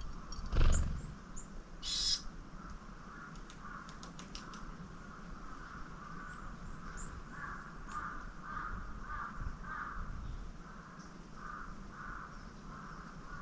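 Outdoor wild-bird scene: a sharp knock about half a second in and a short rasping burst at about two seconds over a steady background of pulsing bird calls, with a few faint clicks.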